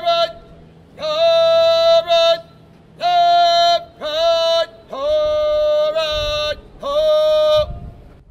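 A drill instructor calling out in the drawn-out, sing-song shout used for commands: six long held calls, each about a second, all on nearly the same strained high pitch.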